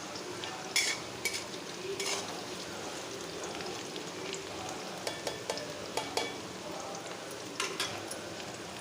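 Food sizzling in a hot pan while it is stirred, with a steady frying hiss and scattered clinks and scrapes of the spoon against the pan.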